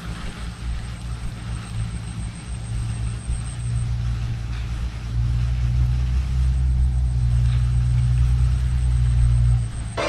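A low, steady rumble that grows louder about halfway through and cuts off suddenly near the end.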